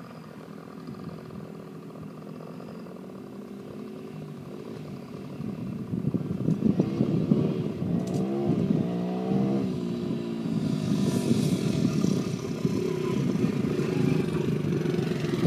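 Dirt bike engine approaching, faint at first and growing louder about six seconds in, its pitch rising and falling as the throttle is worked, then running close by near the end.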